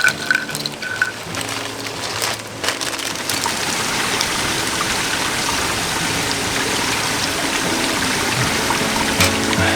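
Steady rushing water, growing fuller after about three seconds, with a couple of light knocks about two and a half seconds in.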